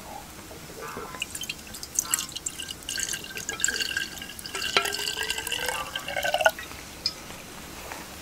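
Warm shochu poured in a thin stream from a ceramic tokkuri flask into a small ceramic cup over ice, trickling with small clicks, its pitch rising as the cup fills. The pour stops sharply about six and a half seconds in.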